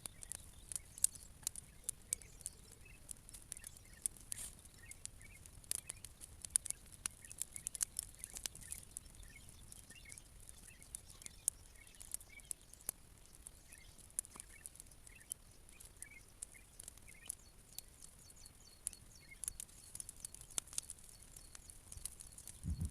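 Wood bonfire of old decking and branches crackling, with irregular sharp pops and snaps.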